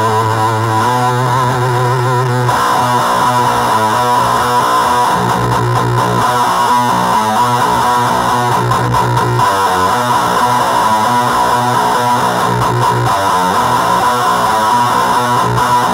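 Electric guitar played through distortion pedals into a powered speaker, being tried out after soldering work on the pedals. It starts with a wavering held note, then plays a run of quickly changing notes.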